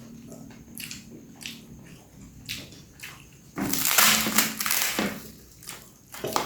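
Close-miked eating: a person chewing with small wet clicks, then a loud burst of crunching that lasts about a second and a half from about midway.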